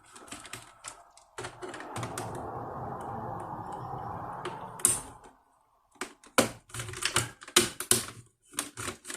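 Sharp clicks and taps of hands and a small screwdriver working on a laptop's plastic case and keyboard during disassembly. In the middle there is a steady dull noise for about four seconds, and after a short gap a quick run of clicks near the end.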